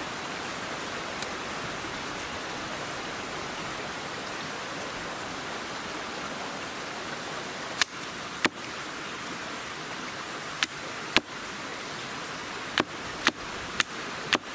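Hatchet chopping at the end of a wooden stick held upright against a log, shaping it to a point: about eight sharp knocks in the second half, coming in quick pairs and then four in a row, over a steady hiss.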